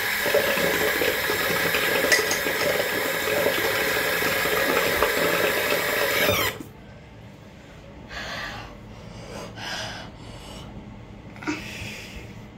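Bathroom sink tap running steadily, turned off suddenly about six and a half seconds in; then a few short, soft rustles as a hand towel is rubbed.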